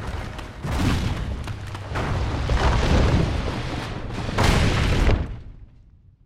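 Rockfall in a cave: a dense, heavy rumbling crash of falling stone with deep booms, swelling in surges, then dying away quickly near the end.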